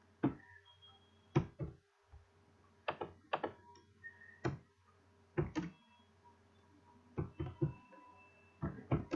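Computer keyboard keys being typed: short sharp clicks in irregular clusters of two or three, over a steady low electrical hum.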